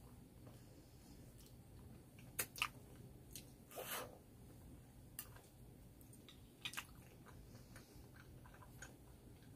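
A person chewing a mouthful of spicy instant noodles and tteokbokki rice cakes: soft, wet chewing with a few sharp mouth clicks and one brief louder rush of sound near the middle.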